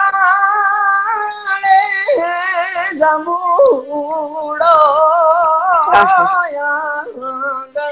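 A solo male singer sings a Gujarati folk melody without accompaniment, in a high voice. He holds long, wavering, ornamented notes with a few short breaks. It is heard over an Instagram live video call.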